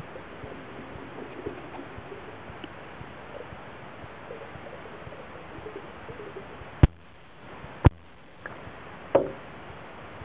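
Underwater noise picked up by a camera in a pool: a steady hiss with faint wavering tones in the first half. Two sharp knocks come about a second apart past the middle, followed by a shorter burst near the end.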